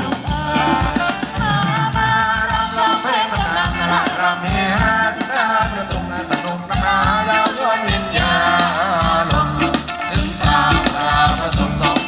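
Live band playing Thai ramwong dance music: a wavering melody over a steady, beating bass rhythm.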